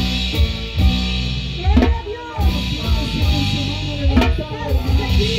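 Live praise band music: a harp and electric bass over a drum kit's steady beat, with a voice singing from about two seconds in.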